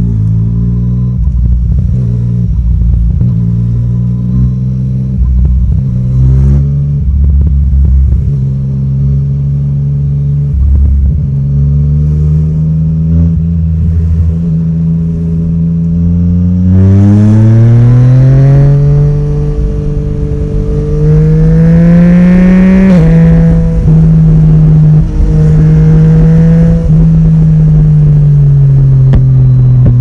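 Yamaha Tracer 900 GT's three-cylinder engine through an Akrapovic exhaust, running at low, steady revs at first. About halfway through it revs up hard, rising in pitch, drops suddenly at a gear change, then holds a higher, steady note near the end.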